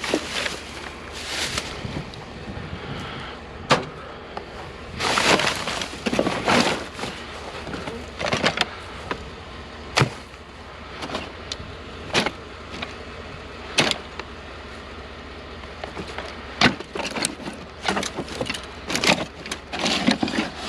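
Items being handled in a curbside junk pile: irregular sharp knocks and clicks, with a few longer rustling, clattering bursts.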